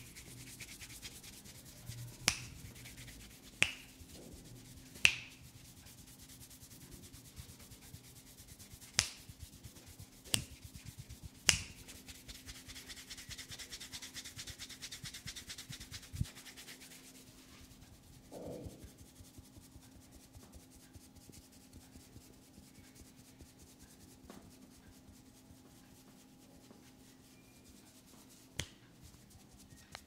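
Fingers rubbing and scratching through hair on the scalp, with sharp finger snaps: six spread over the first dozen seconds and one more near the end. The rubbing fades out a little past halfway, leaving it quieter.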